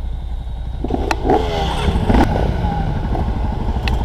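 Dirt bike engine running at low revs, with a short burst of revs between one and two seconds in and a few sharp clicks.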